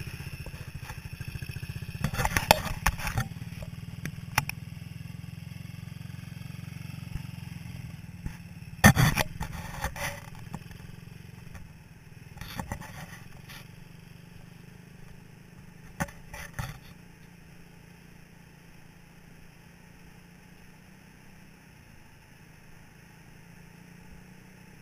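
Small beach buggy's engine running steadily and growing fainter as the buggy drives away across the sand. Several sharp knocks and clatters cut in, the loudest about nine seconds in.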